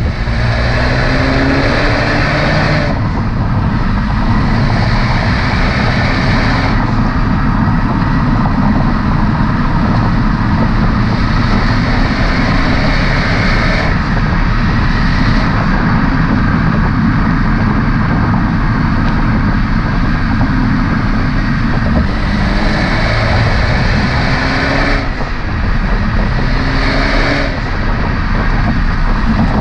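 Honda Civic Hatchback Sport's turbocharged four-cylinder exhaust under way, with steady road and wind noise. The engine note climbs in pitch under acceleration at the start and again a little past two-thirds through, with abrupt changes in tone between.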